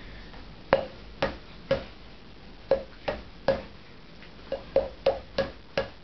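Hand knocking on the drive-side crank arm to tap the greased Shimano Hollowtech II crank spindle home through the bottom bracket bearings: about eleven sharp knocks in uneven groups, each with a short ring.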